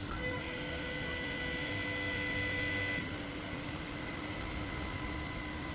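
A steady machine whine made of several held tones over a low hum; some of the tones cut off about three seconds in while the rest carry on.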